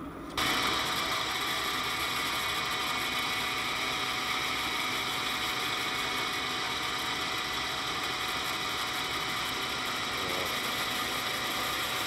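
Small metal lathe switched on about half a second in, then running steadily with a whine, spinning a washing-machine motor rotor while a center drill is fed into the end of its shaft.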